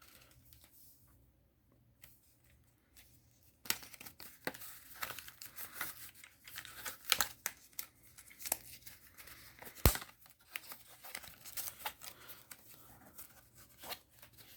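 Scissors cutting open a Pokemon trading card pack, the wrapper crinkling and tearing in irregular crackles that start a few seconds in, with one sharp loud click about ten seconds in.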